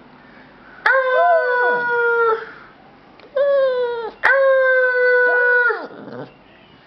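Small dog howling: three long howls, each starting suddenly and holding a steady pitch before sagging at the end, with a second voice arching up and sliding down beneath the first and last.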